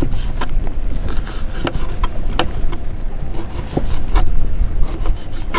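Fillet knife cutting squid on a plastic cutting board: scattered sharp clicks and scrapes as the blade hits and drags on the board, over a steady low rumble.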